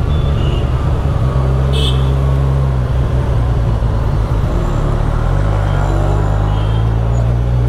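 Kawasaki Z1000SX (Ninja 1000) inline-four engine running at low speed in town traffic, its note uneven for the first few seconds and steadier from about five seconds in, with street traffic around it.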